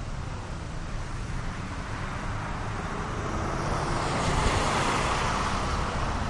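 A car passing on the road, its tyre and engine noise swelling about halfway through, over a steady low rumble of wind on the microphone.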